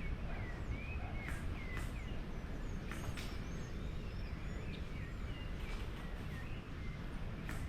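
Small birds chirping again and again in short rising and falling calls, over a steady low rumble of wind and handling noise on the microphone. A few sharp clicks or snaps are scattered through it.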